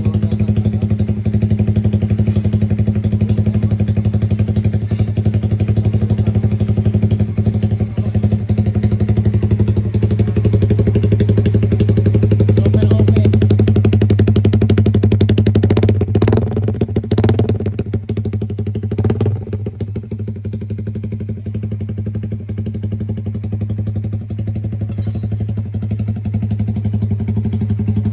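Suzuki Raider Fi motorcycle engine idling steadily through an open aftermarket exhaust. A few sharp clicks come about two-thirds of the way through, after which the engine is a little quieter.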